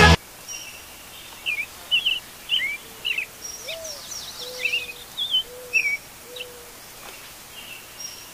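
Birds chirping: a scattering of short, quick high chirps over a quiet background, with a few lower, drawn-out whistled notes in the middle.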